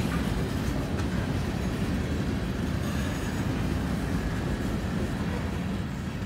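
Freight train of covered hopper cars rolling past: a steady rumble of steel wheels on the rails.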